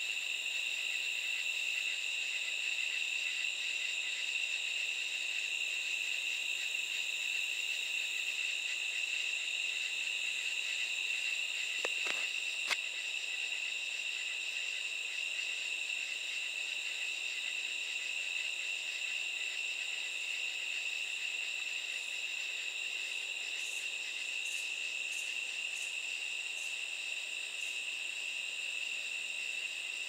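A chorus of katydids calling at night: a steady, unbroken high-pitched drone. Two faint clicks come about twelve seconds in.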